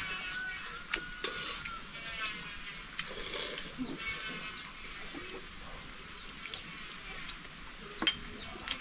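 Farm animals bleating: several quavering calls, with a few sharp clicks in between.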